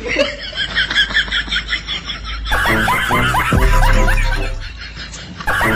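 Loud laughter: quick, high-pitched giggling for the first couple of seconds, then a deeper, rhythmic laughing fit that breaks off and starts again near the end.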